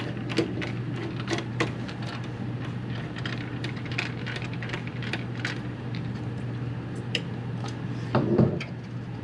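Hand screwdriver fastening screws into the NAS's sheet-metal chassis: a run of small irregular clicks and ticks from the bit and screw on the metal. About eight seconds in there is a louder scrape.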